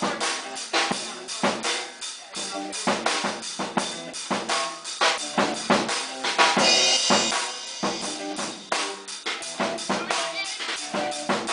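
Rock band playing live: a drum kit beating a steady rhythm under electric guitars. A bright, ringing stretch sits a little past halfway.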